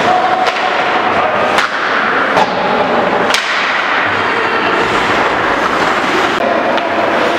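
Ice hockey play in an indoor arena: sharp cracks of sticks and puck striking, four in the first three and a half seconds with the loudest near the middle, over a steady hubbub of rink noise.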